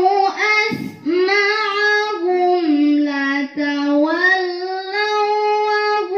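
A woman chanting a melodic Quran recitation (tilawah) into a microphone: long held notes with ornamented pitch turns, broken by short breaths about a second in and again past three seconds.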